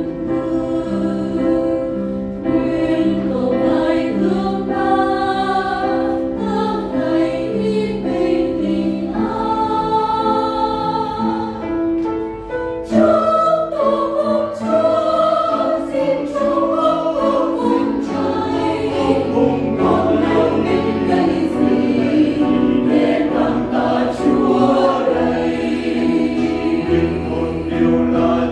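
Mixed choir singing a Vietnamese hymn in parts, with piano accompaniment; the sound grows fuller and louder about halfway through.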